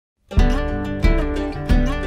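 Background music starting about a third of a second in, with a strong beat about every two-thirds of a second under sustained notes.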